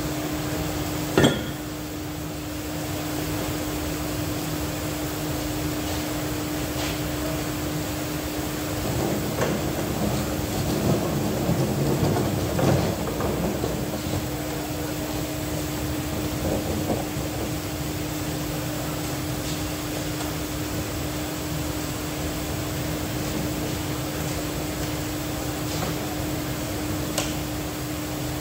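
Steady workshop hum with one constant tone, broken by a single sharp metal knock about a second in and several seconds of irregular clattering and knocking about ten seconds in, from heavy DC motor parts and tools being handled during assembly.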